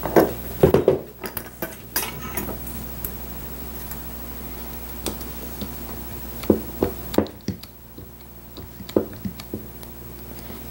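Scattered sharp metallic clinks and knocks of steel upholstery wire against metal hand tools, a wire-bending jig and a hydraulic wire crimper, with the loudest cluster in the first second.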